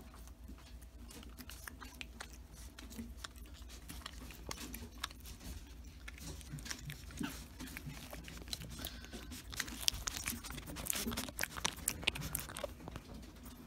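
Young groundhog (woodchuck) chewing and tearing leafy greens: a run of small crisp crunches and clicks that come thicker toward the end.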